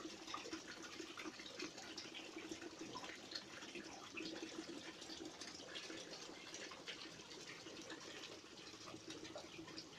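Faint, steady trickle of running water, flecked with small drip-like ticks.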